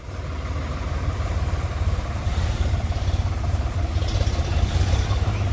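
Heavy diesel engine of a backhoe loader or farm tractor running. It grows louder over the first second, then holds a steady low rumble.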